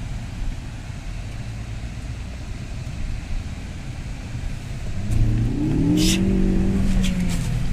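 Ford Focus ST's turbocharged four-cylinder engine heard from inside the cabin, a low rumble while driving. About five seconds in it revs up hard under acceleration and holds high revs, with a brief hiss about a second after the revs begin to rise.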